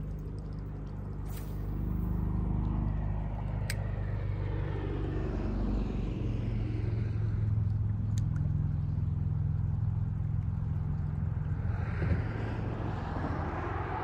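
Road traffic on a highway bridge: a steady low engine rumble from passing vehicles that swells as one goes by about a third of the way in, with a few faint clicks.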